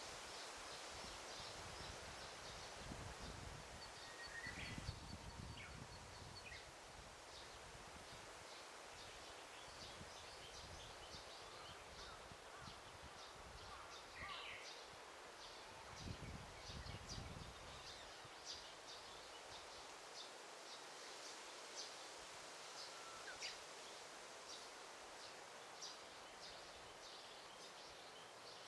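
Forest ambience: a faint steady hiss with small birds chirping throughout in many short high calls, a few louder rising calls among them. Two brief low rumbles, about three seconds in and again around sixteen seconds.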